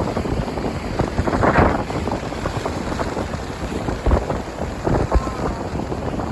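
Strong wind buffeting the microphone, with heavy gusts about four and five seconds in.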